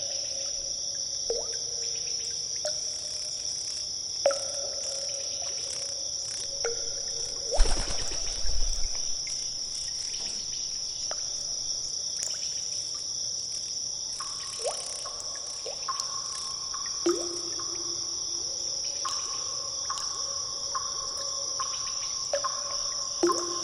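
Cave water drips falling into pools, each a short plop with a ringing tone, one every second or two, over a steady high-pitched hiss. About eight seconds in comes a louder, splashier cluster of drops.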